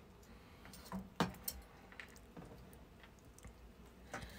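Faint taps and knocks of a kitchen knife slicing cooked steak on a plastic cutting board. There are two sharper knocks about a second in and a few softer taps after them.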